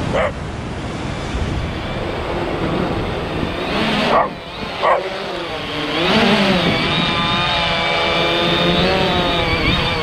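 A small dog barks a few times over wind and surf noise; from about six seconds in, a quadcopter drone's propellers whine steadily close overhead as it hovers down to be caught by hand.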